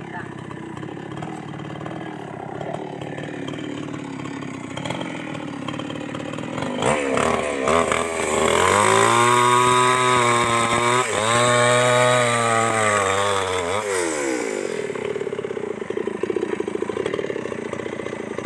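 Chainsaw revving up about seven seconds in and cutting through a log for about six seconds, its engine note dipping briefly midway. It then drops back to a fast idle.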